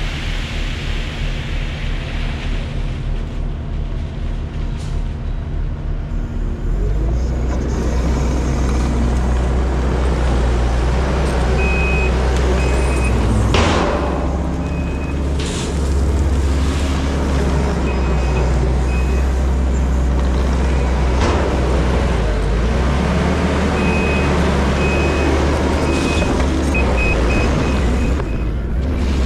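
Heavy earthmoving machine's diesel engine running steadily, rising in load and level about seven seconds in. From about halfway through, a backup alarm beeps in repeated short runs.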